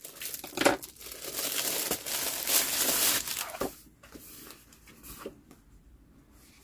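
Clear plastic wrapper crinkling and crackling as a scrapbook paper pad is slid out of it, dying down to faint paper rustles about four seconds in.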